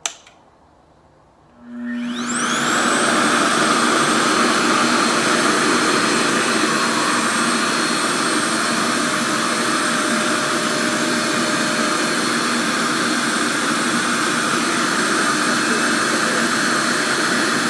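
Revair reverse-air blow dryer switching on about two seconds in: its motor spins up with a rising whine, then runs steadily with a loud, vacuum-like rush of air and a constant whine.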